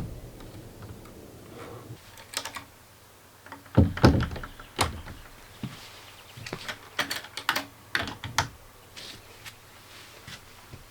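Irregular knocks and clicks from a newly hung hinged window being handled and tried: hinge and latch clicks, with the loudest thunks of the sash against the frame about four and five seconds in.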